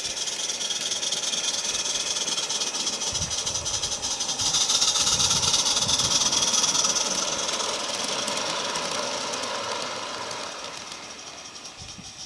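Small live-steam garden-railway locomotive chuffing with rapid exhaust beats and a steady hiss as it pulls its coaches past, loudest about halfway through and fading towards the end.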